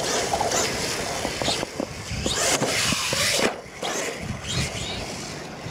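R/C monster truck driving hard on dirt: its motor whine rises and falls with the throttle, and the tires scrabble and throw dirt, with a few short knocks.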